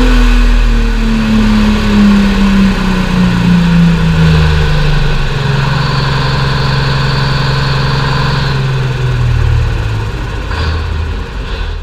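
Detroit Diesel 2-71 two-stroke diesel running on a dynamometer. Its engine speed falls steadily over the first several seconds, then holds at a lower steady speed, with a high whine for a few seconds in the middle. The sound fades away near the end.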